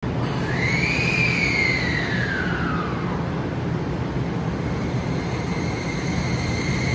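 Keio 5000 series electric train pulling away from a station. The high whine of its inverter-driven traction motors sweeps up and then back down in pitch over the first few seconds, then settles into a steady high whine as the train gathers speed, over a steady low rumble.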